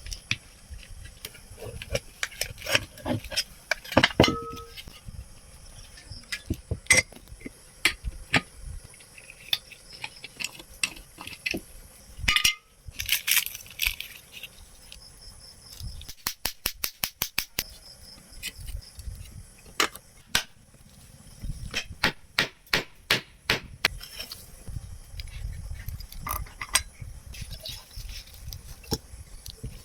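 Metal clinks and sharp taps from tools working on a ceiling fan's motor and bearings during a bearing replacement. Partway through comes a quick, even run of about a dozen taps, and later another cluster of taps.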